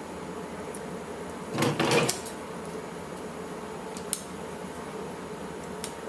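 Scissors cutting away the fur of an Elmo Live toy: a short burst of snipping clicks and rustling about a second and a half in, then two single sharp clicks later on.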